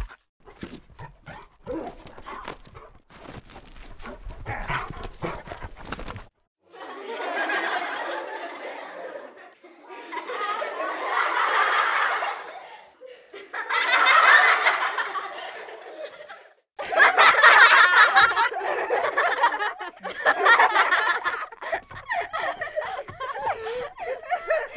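Laughter sound effects: several separate bursts of people laughing, each a few seconds long, starting about six seconds in after a stretch of faint clicking.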